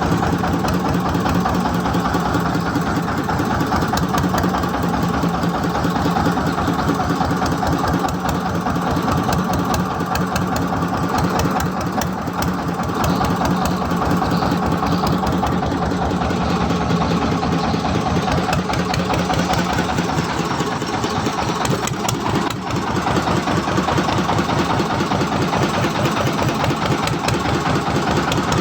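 An engine running steadily at an even speed, its firing heard as a fast, regular pulse.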